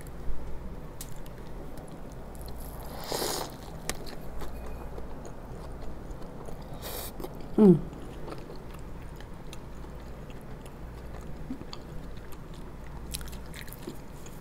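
Close-miked wet biting and chewing of a saucy In-N-Out burger, with small mouth clicks. A little past halfway comes a brief falling hum from the eater, the loudest sound in the stretch.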